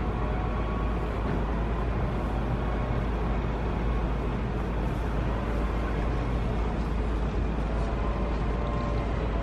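Steady outdoor city background: a continuous low rumble of distant road traffic, with faint higher tones drifting in and out.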